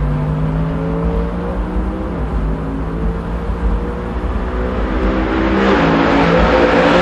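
Mercedes-AMG GT Black Series 4.0-litre twin-turbo V8 engine running hard as the car approaches, its steady note stepping down in pitch about two seconds in and again about five and a half seconds in. It grows louder near the end, with a rising rush of tyre and wind noise.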